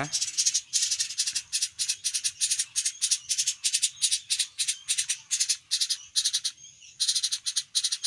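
Two 12-day-old woodpecker nestlings begging, a fast, high, dry rattling chatter of about six pulses a second, broken once by a short pause near the end. This is the hungry nestlings' food-begging call.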